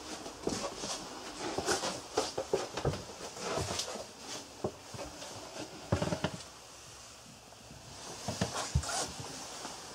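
Irregular knocks, thuds and rustles of someone moving about a small wooden cabin: footsteps on the floor and handling of the handheld camera, with a quieter spell about two-thirds of the way through.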